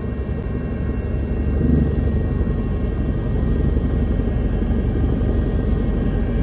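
Helicopter running steadily in flight: a continuous low rotor and engine rumble with a faint steady whine above it.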